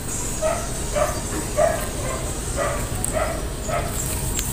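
A dog barking over and over at an even pace, about two short barks a second.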